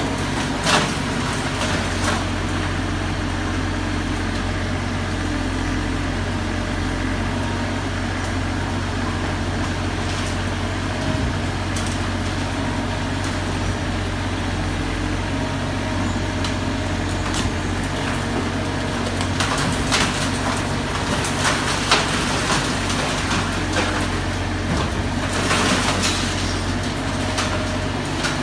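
Excavator's diesel engine running steadily while its hydraulic mini crusher attachment crunches concrete, with scattered sharp cracks and breaks that come more often in the last third.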